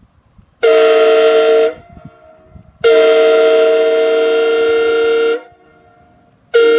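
Homemade five-chime PVC locomotive horn modelled on a Nathan K5LA, with trumpets made from transmission funnels, sounding its chord (D♯, F♯, G♯, B, D♯) in blasts: a short one about half a second in, a longer one of about two and a half seconds, and a third starting near the end.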